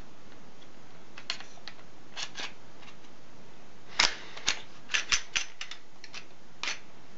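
Smith & Wesson M&P9 pistol being reassembled by hand: sharp clicks as the slide goes back onto the frame. A few faint clicks come first, then a quick run of louder clicks about four to five and a half seconds in, and one more near the end.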